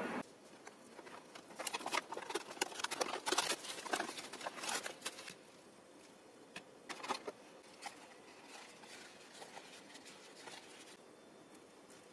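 A microwave oven's running hum cuts off right at the start. Then plastic film wrapping on a food tray crinkles as it is handled, in a dense run of crackles and a few more a little later.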